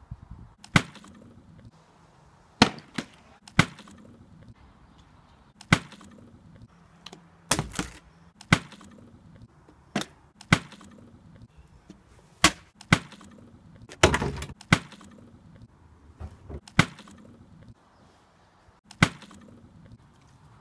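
A partly filled plastic water bottle being thrown and flipped, striking a wooden fence and concrete paving. It makes a series of sharp knocks, one every second or two, some in quick pairs or clusters.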